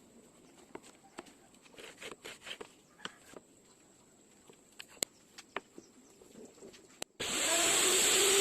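Faint scattered knocks and clicks of wood being handled. About seven seconds in, a loud machine cuts in abruptly with a steady whine over a hiss.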